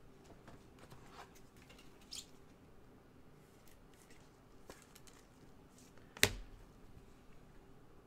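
Faint rustling and small clicks of gloved hands handling a trading-card box and its packaging, with one sharp knock on the desk about six seconds in.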